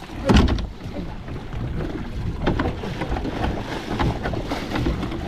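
Water splashing and knocks as a large tuna thrashes at the side of the boat while it is being gaffed, with a loud hit about a third of a second in and more near the middle and toward the end. Wind noise on the microphone.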